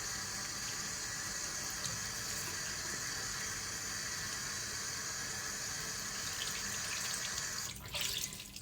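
Water running steadily from a tap into a sink, shut off near the end.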